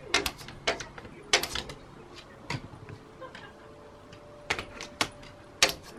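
A Shiba Inu's claws clicking and tapping against a glass pane, in irregular clusters of sharp taps.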